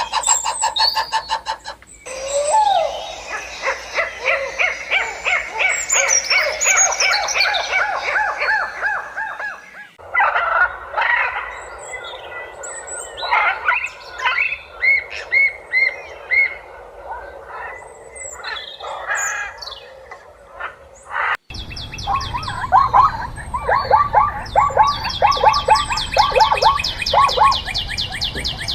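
Birds chirping and singing in several edited-together clips. The calls change abruptly about 2 seconds in, about 10 seconds in and about 21 seconds in: first dense overlapping chirps, then scattered calls, then fast repeated trills.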